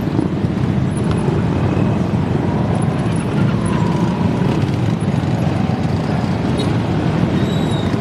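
A steady stream of small motorcycles and scooters riding past close by: a dense, even drone of engines and exhausts with no single machine standing out.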